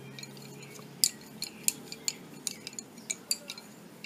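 Lace bobbins clicking against one another as the threads are twisted and crossed in mundillo bobbin lace: a string of light, irregular clicks starting about a second in.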